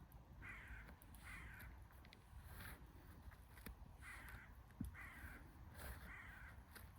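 A bird cawing far off, five harsh calls: two close together near the start, then after a pause three more in a row. A single short knock comes between the fourth and fifth calls.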